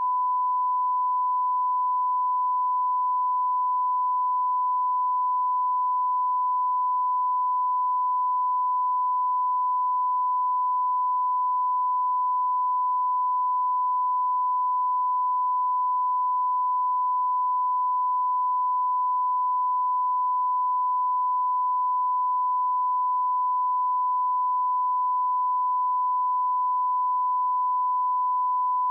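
Television colour-bar test tone, the reference tone used to line up audio levels: a single steady, unbroken pure beep that never changes in pitch or level.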